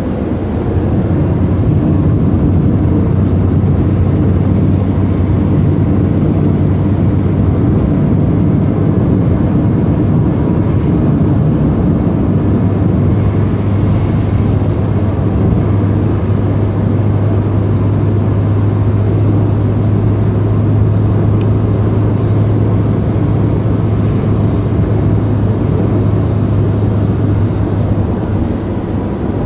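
Steady road and engine noise inside a car cabin cruising at speed on an expressway, with a low hum that grows stronger about halfway through.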